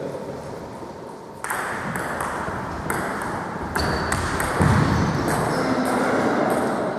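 Table tennis ball being hit back and forth in a doubles rally: sharp clicks of the ball on paddles and table, at an uneven pace, starting about a second and a half in.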